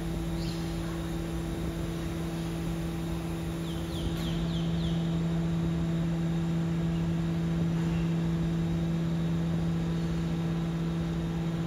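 Steady electric hum from a BYD electric garbage truck standing at a bin point, one constant low pitch with its octave above it. A few short high chirps come about four seconds in.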